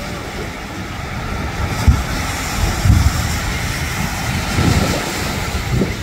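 Ocean surf washing in, with a hiss that swells about two seconds in and eases near the end. Wind buffets the microphone throughout.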